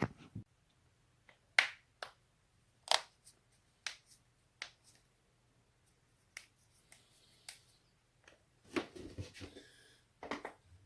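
Human joints being cracked: about ten sharp pops at irregular intervals, one or two seconds apart. Near the end comes a quicker cluster of softer pops with a low rustle.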